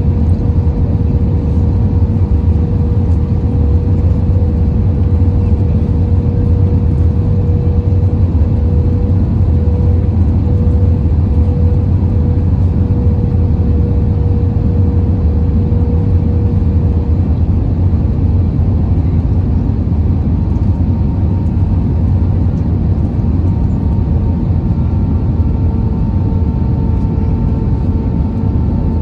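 Airbus A320 cabin noise on the descent to landing: a loud, steady, low rumble of engines and airflow. A faint steady hum fades out about two-thirds of the way through, and a higher hum comes in near the end.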